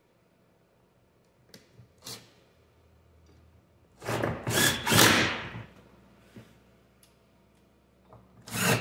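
Cordless drill driving screws to mount a wooden jig to a workbench: two short runs, one about four seconds in and one near the end, after a couple of light knocks as the screws are set.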